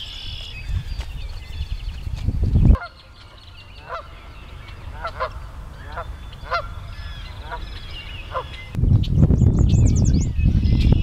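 Canada goose honking, a series of short calls spaced irregularly over several seconds. Before and after the honks, a louder low rumbling noise with small birds singing high above it.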